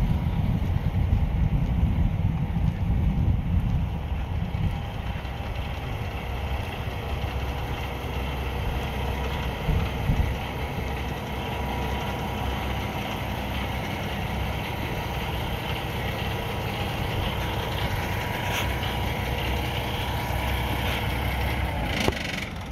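Kenworth T680 semi tractor's engine idling steadily.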